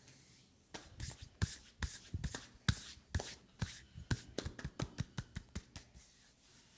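A quick, uneven run of hand pats and slaps on an oiled leg, several a second, starting about a second in and stopping near the end.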